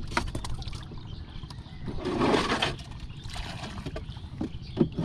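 Water splashing and trickling around a small wooden boat, with scattered light knocks and clicks against the hull. A louder splash comes about two seconds in, and a sharp knock comes near the end.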